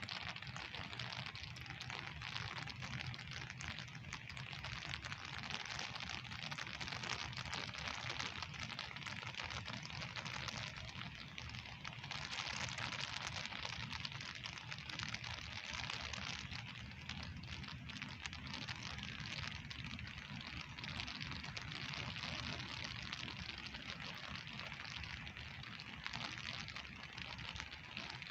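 Steady rain falling, an even hiss of many drops with a low rumble underneath.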